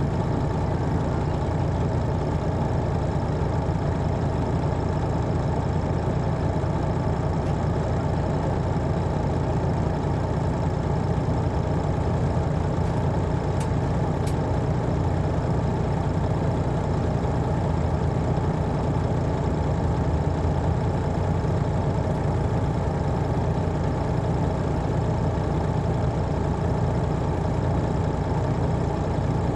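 Detroit Diesel Series 60 diesel engine of an MCI D4000 coach, heard from the back seats inside the bus, running steadily with no change in pitch.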